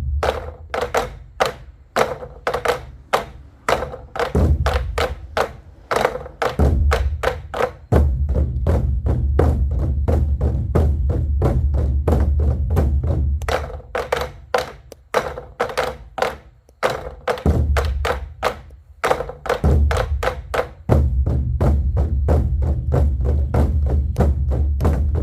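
An ensemble of Korean buk drums beaten in a fast, dense galloping rhythm, meant to evoke charging horses and thunder. Long stretches of continuous low rumbling rolls run under the strokes, breaking off briefly around the middle.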